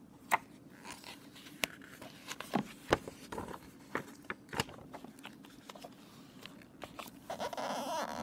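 A picture book's paper pages being handled: scattered clicks and taps, then a paper rustle near the end as a page is turned.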